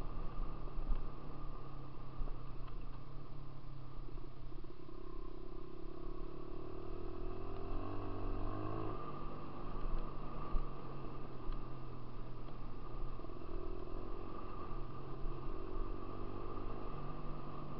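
Dirt bike engine running under way, its speed changing as the throttle is worked; the engine pitch climbs in the middle and drops back about nine seconds in.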